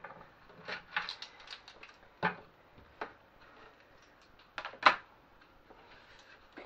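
Kitchen items being handled: a scattering of light clicks and knocks, the sharpest a single knock about five seconds in.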